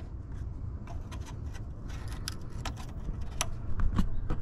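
Scattered light clicks and ticks of a pick prying plastic vacuum-line fittings off a boost pressure sensor, the loudest near the end, over a low steady rumble.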